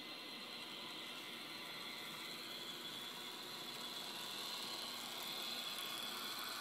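Märklin model train locomotive running along the layout track, a steady mechanical running noise that grows gradually louder.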